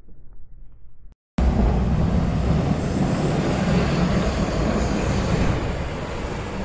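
Wind buffeting the microphone in a snowstorm: a loud, steady rushing noise with a heavy low rumble, starting abruptly about a second and a half in.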